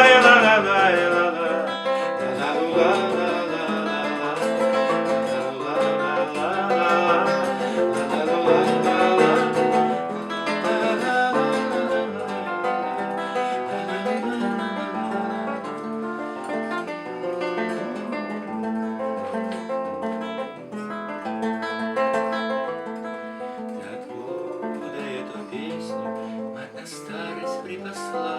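Acoustic guitar playing an instrumental break between verses of a song, growing gradually softer toward the end.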